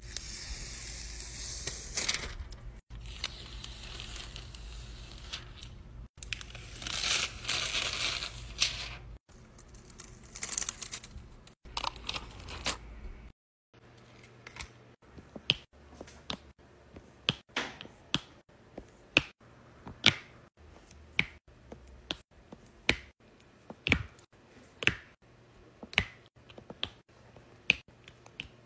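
Scratchy crinkling and rubbing over a diamond painting canvas and its plastic cover film, in several abruptly cut segments. From about halfway on, a drill pen presses resin drills onto the sticky canvas one at a time, giving sharp little clicks a little over once a second.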